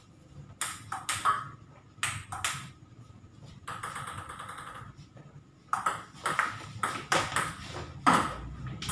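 Table tennis ball bouncing off a Tibhar table and rubber-faced paddles: a few spaced bounces while a serve is readied, then a quick rally of sharp hollow clicks, about two or three hits a second, in the second half.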